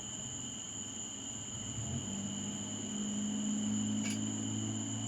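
Crickets trilling steadily. About two seconds in, a low steady hum joins them.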